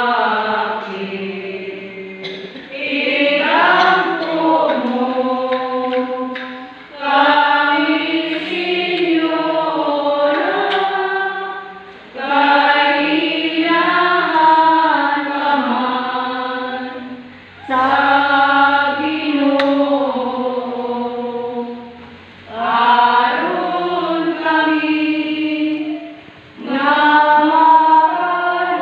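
A church congregation singing together in a slow, chant-like melody. The phrases run about five seconds each, with a short pause for breath between them.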